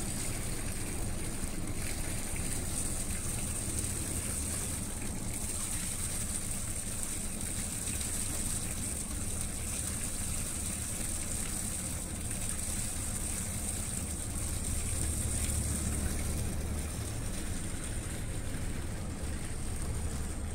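Engines of a large river tanker-barge passing close by: a steady low drone.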